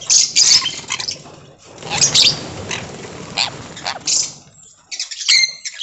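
Pet conures squawking: a series of short, sharp, harsh calls, with a clear pitched call about five seconds in.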